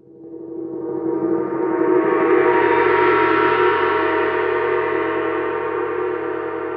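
A gong swelling up over about two seconds, then ringing on with many steady tones and slowly fading.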